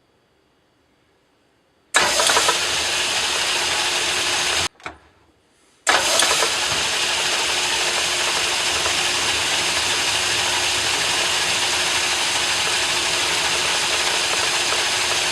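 Metal lathe switched on about 2 s in, stopped for about a second near 5 s, then started again and running steadily under power, ready to take a light cut on the steel workpiece.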